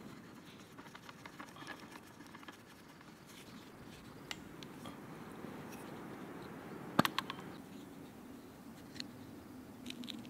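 Small clicks and scrapes from hands working a .25 calibre air rifle's action, with one sharp, loud metallic clack about seven seconds in followed by a couple of lighter clicks.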